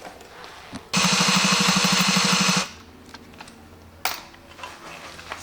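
Power drill running in one burst of about a second and a half with a fast, even pulsing, boring into the super glue that fills a snapped bolt's hole in an alloy wheel. A single sharp click follows a little later.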